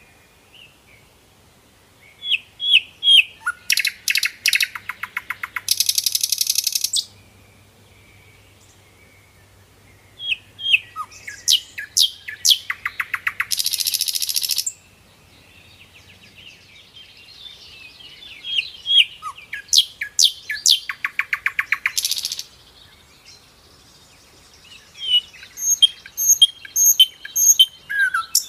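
A bird singing, four phrases in turn, each a few clear chirps followed by a fast trill lasting a second or two, with short quiet gaps between.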